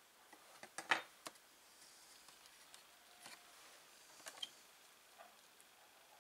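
Faint handling noise from a disassembled LCD monitor panel being fitted back together: sharp clicks and taps, the loudest cluster about a second in and another pair about four seconds later.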